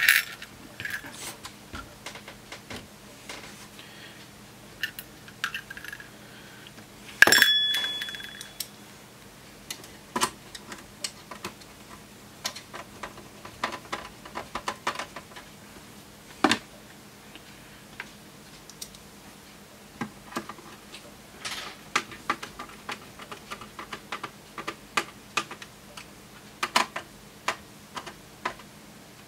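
Light clicks and taps of small metal parts, screws and tools being handled while a bench power supply's front panel is fitted back onto its metal chassis. A sharp metallic clink with brief ringing comes about seven seconds in, and another knock a little past the middle.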